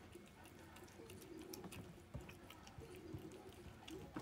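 Bengal cat eating from a food bowl: faint, irregular chewing with many small clicks.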